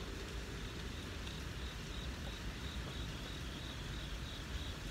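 Crickets chirping in a steady, rhythmic pattern of short high pulses, over a faint low background hiss.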